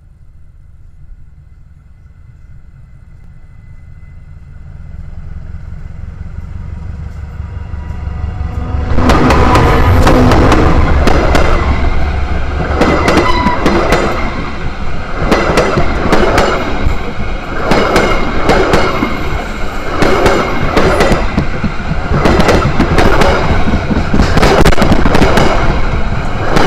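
A train approaching and then rolling directly over the microphone between the rails. A low rumble builds for about nine seconds, then it turns loud, with the wheels pounding out repeated sharp knocks in clusters as each set of wheels passes over.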